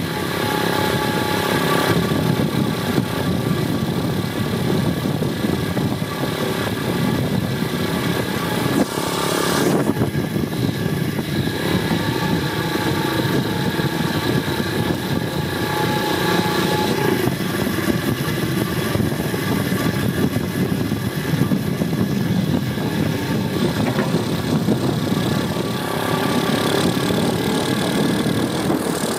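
Apollo 125cc pit bike's single-cylinder four-stroke engine running under way, its note shifting with the throttle, with a brief break in the sound about ten seconds in.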